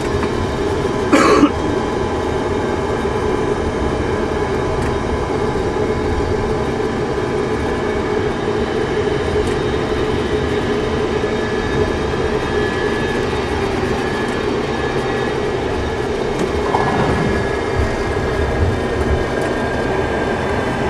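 Steady cockpit noise of a Tupolev Tu-154B-2 while it taxis: an even rumble and hiss with several steady whining tones. There is one short, louder burst of noise about a second in.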